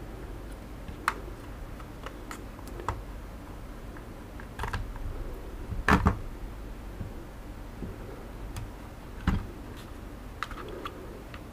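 Scattered plastic clicks and light knocks from handling the opened Xiaomi Mi Drone 4K remote controller as a battery pack is unplugged and lifted out of its casing. The loudest clatter comes about six seconds in, with another sharp knock a little after nine seconds.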